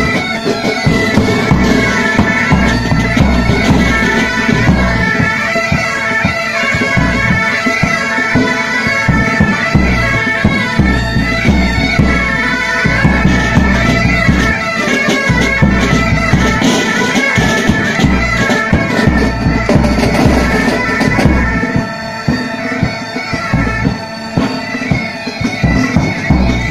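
Pipe band playing a march: bagpipes with their steady drones under the chanter melody, and snare and bass drums keeping a regular beat.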